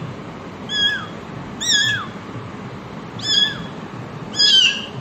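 Kittens mewing: four short, high-pitched mews, each dropping in pitch at its end.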